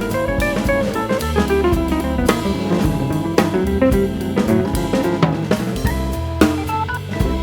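Background music with a drum kit keeping a steady beat under a melodic guitar line.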